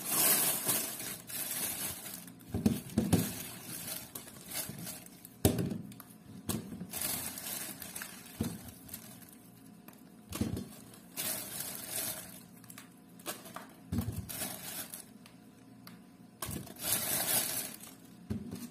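Thin plastic bag crinkling in repeated bursts as small citrus fruits are handled out of it, with a few dull knocks as fruit is set down in a plastic basket.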